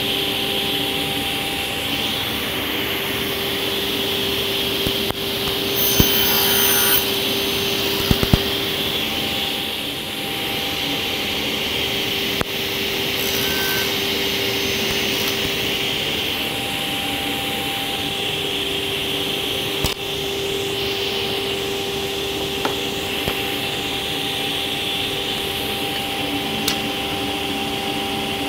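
Sliding table saw running steadily with a hum, cutting small cocobolo blanks to length; the sound swells briefly about six seconds in as the wood is cut, followed by a few clicks.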